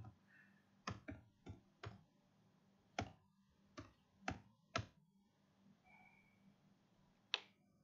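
Computer keyboard keys typed one at a time: about eight faint, separate clicks over the first five seconds, then one more click near the end.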